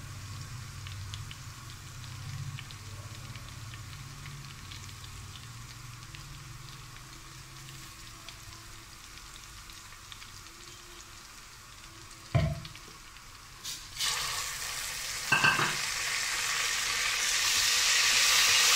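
Green chilli and garlic paste frying in hot oil in a pressure cooker: a faint sizzle that turns much louder about fourteen seconds in and keeps growing, with a metal slotted spoon stirring. One knock sounds a little before the sizzle rises.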